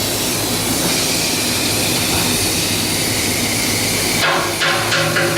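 Steady, loud hissing machinery noise of shipbuilding work, with a low hum under it. Some knocks and ringing tones come in near the end.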